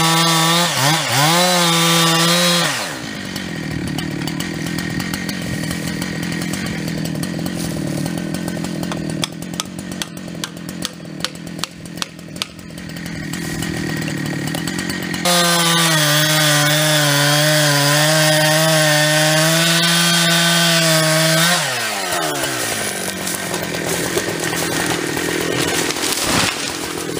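Modified two-stroke chainsaw, a Husqvarna 372 X-Torque with a Huztl 52 mm big-bore top end and modded muffler, cutting at full throttle with its pitch wavering under load, then dropping to idle about three seconds in. A run of sharp cracks comes in the middle, and about halfway through the saw is back at full throttle for some six seconds before falling to idle again.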